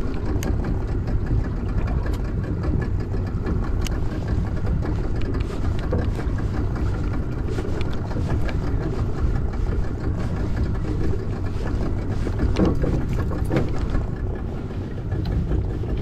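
A fishing boat's motor running at idle, a steady low rumble, with a few light clicks and knocks over it.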